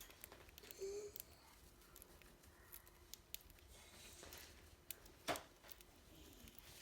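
Faint, sparse little clicks and ticks of a budgie pecking and husking seeds from a hand, with one sharper click about five seconds in.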